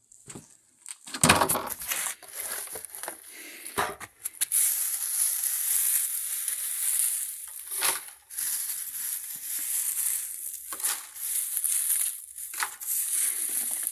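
Dry material rustling and crunching as it is handled, with a few heavy knocks in the first half.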